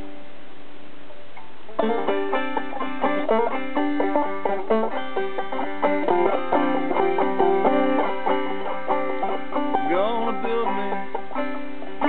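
Banjo picked in old-time style, a quick run of plucked notes with a bright ringing twang. It starts about two seconds in, after a short stretch of steady hiss.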